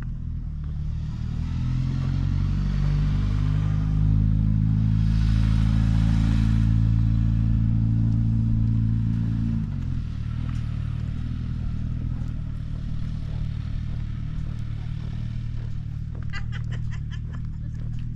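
1998 Chevrolet Express van's engine pulling on the road, its note climbing and getting louder, then dropping suddenly about ten seconds in and running on steadily. A short run of quick clicks near the end.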